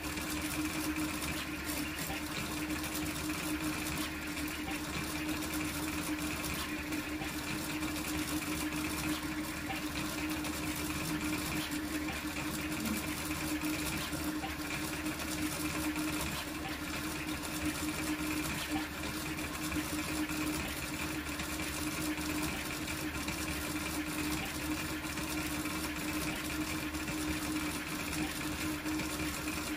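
Large toolchanger 3D printer printing a Benchy at high speed: stepper motors whirring and buzzing in quick, ever-changing strokes as the print head darts back and forth, over a steady hum.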